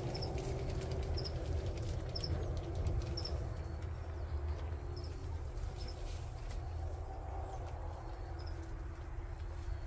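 Outdoor field ambience: a steady low rumble, with faint, short, high double chirps recurring about once a second.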